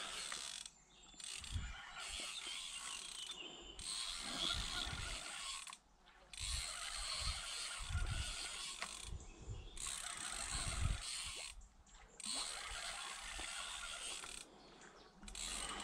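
Fishing reel ratcheting in spells of two to three seconds with short pauses between, as a hooked salmon is played and line is wound in.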